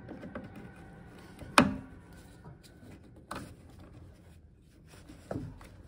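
Small clicks and knocks of parts being handled inside a combi boiler as a new water pressure sensor is greased and pushed into place. The sharpest click comes about a second and a half in, with two softer knocks later.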